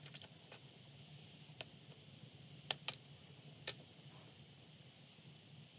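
A few light, sharp clicks and taps from painting supplies being handled, two of them close together near the middle, over a faint steady hum.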